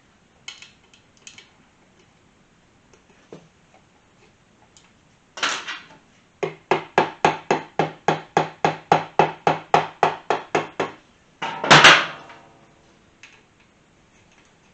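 A hammer taps on the Kawasaki KZ400 engine's case to loosen it from its gasket. There is one sharp knock, then a quick run of about eighteen even taps, roughly four a second, each with a short metallic ring. A final, harder blow near the end rings on briefly.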